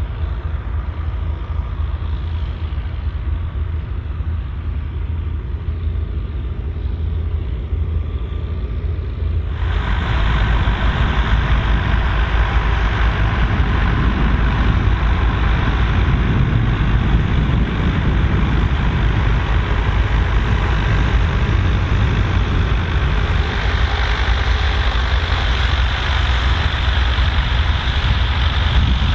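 Volvo BM814 tractor's diesel engine pulling hard under the load of a six-furrow plough, a steady deep rumble. About a third of the way in the sound turns abruptly louder and fuller.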